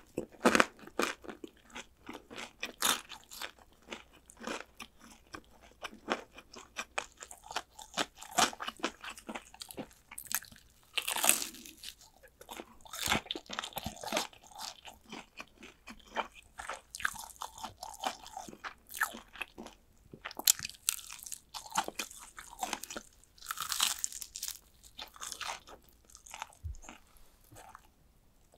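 Close-up crunching and chewing of crispy fried chicken drumsticks: many sharp, irregular crackles as the crisp coating is bitten, with louder bites now and then.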